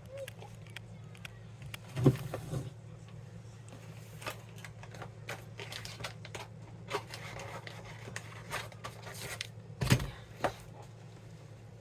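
Cat food being prepared: rapid small clicks and scrapes of dishes and packets being handled, with louder knocks about two seconds in and near the end, over a steady low hum.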